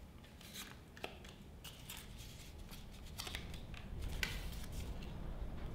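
Faint rustling and a few small clicks of cardboard being handled as a cardboard wheel is pushed onto a car's axle, with a low hum growing underneath in the second half.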